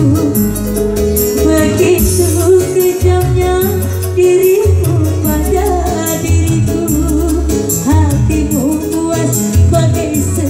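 A woman sings into a microphone with a live electronic keyboard band, amplified through PA speakers. Bass notes and a steady beat run under the sung melody.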